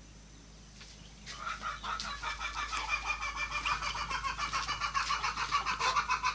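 Village chickens calling in quick repeated notes, about five or six a second, starting about a second in and growing louder.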